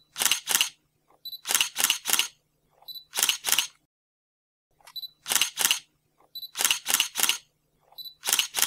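Camera shutter clicks in quick bursts of two or three, repeating every second or so, with a short high beep before some bursts.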